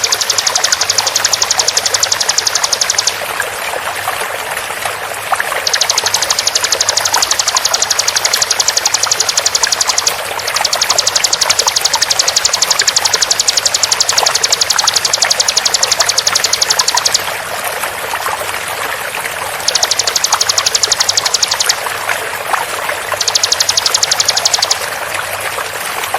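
Bar-winged prinia (ciblek) giving its rapid 'tembakan' trill, a very fast run of evenly repeated high notes, in bouts of several seconds broken by short pauses. Steady running water flows underneath.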